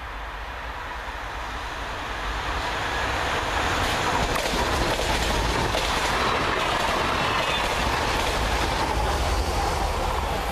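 A Z 20500 Transilien double-deck electric multiple unit approaching and passing close by at speed. Its wheels on the rails grow louder over the first few seconds, then hold a steady rush.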